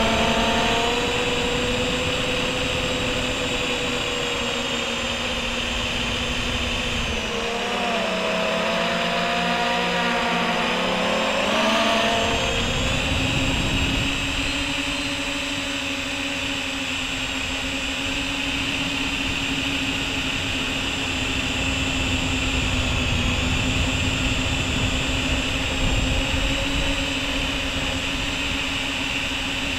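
MJX Bugs 3 quadcopter's four brushless motors and propellers, running on a 2S battery and heard from the camera mounted under the drone, making a steady buzzing whine. About seven seconds in the pitch drops as the throttle is eased back, then climbs again around twelve seconds in and holds steady.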